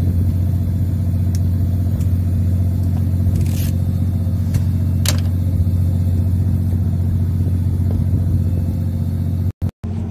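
Steady low drone of a fishing boat's engine running, with a couple of short clicks around the middle. The sound cuts out briefly near the end.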